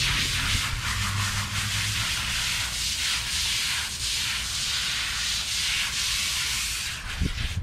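Garden hose spray nozzle spraying water onto a soapy dog's coat in a steady hiss, rinsing the shampoo out. The spray stops about seven seconds in.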